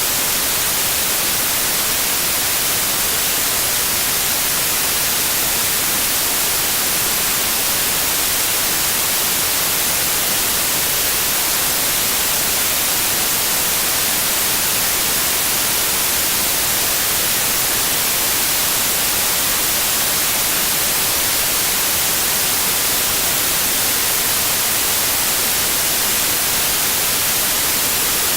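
Steady, unchanging white noise: an even hiss, strongest in the high end, with no tone or rhythm in it.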